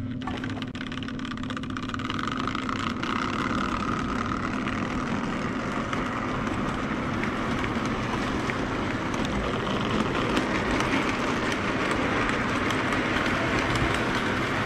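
Lionel prewar O gauge Blue Comet train, pulled by a 226E steam locomotive, running on tinplate T-rail track: a continuous rolling rumble and clatter of metal wheels on rail with a steady hum underneath, growing louder over the first couple of seconds as the train comes past.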